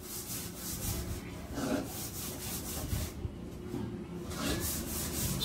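Marker tip rubbing across a whiteboard in a run of short strokes as words are written.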